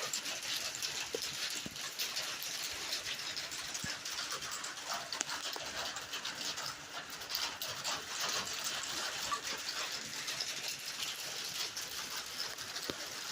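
Rain falling on a tin roof: a steady, dense patter of many small drop hits.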